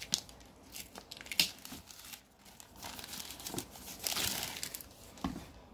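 A thin clear plastic bag crinkling and rustling as hands pull it off a cardboard box, in irregular crackles with a sharp crackle about a second and a half in and a denser run about four seconds in.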